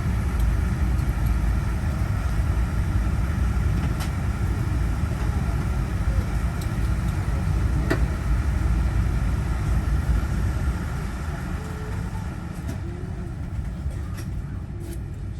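Boeing 787-9 Dreamliner's GEnx-1B engine starting, heard inside the cabin as a steady low rumble with a faint steady whine above it, easing off a little about eleven seconds in.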